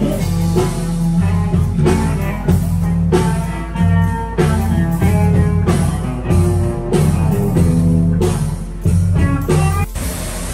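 Live band music: an electric guitar playing over a drum kit beat. Near the end it cuts off suddenly to the steady rushing hiss of a fountain's water jets.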